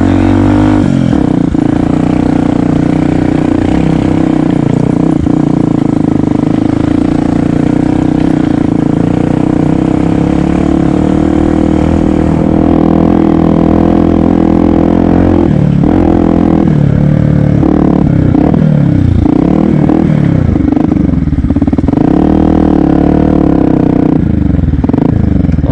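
Yamaha WR125X's 125cc single-cylinder four-stroke engine running under way, steady at first, then revving up and down repeatedly over the second half as the throttle is worked.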